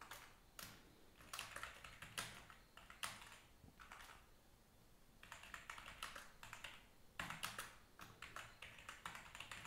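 Faint computer keyboard typing in quick runs of keystrokes, with a pause of a second or two near the middle.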